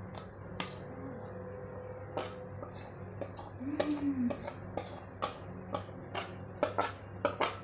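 A metal spoon clinking and scraping against stainless-steel bowls as thick sugar syrup is scraped out into the cake batter. The sharp clinks are sparse at first and come thick and fast in the second half, over a steady low hum.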